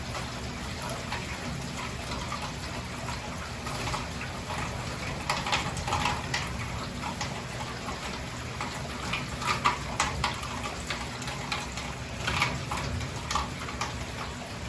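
Heavy hurricane rain falling steadily, with water pouring and irregular close splashes and drips, the loudest about ten seconds in.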